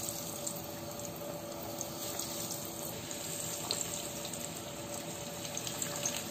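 Breaded egg fingers deep-frying in hot oil: a steady sizzling hiss with a few faint crackles and pops.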